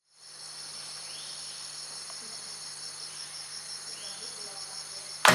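Rainforest insects calling in a steady, high, rapidly pulsing trill. Loud music cuts in abruptly near the end.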